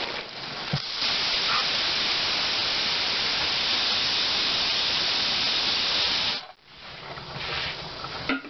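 Hawkins pressure cooker's pressure regulator weight venting a jet of steam: a loud, steady hiss for about five seconds that cuts off suddenly, with a quieter hiss before and after. Such a blow-off is the sign that the cooker is up to pressure with the burner at the right setting.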